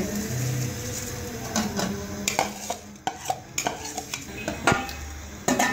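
Soaked rice poured into a pot of boiling water, then a long metal spoon stirring it, with irregular clinks and scrapes of the spoon against the metal pot from about a second and a half in.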